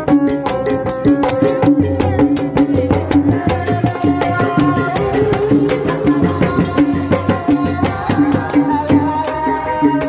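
Sundanese tanji street band playing: a bass drum, snare drums and a gong beat a dense, fast rhythm under a melody of held notes.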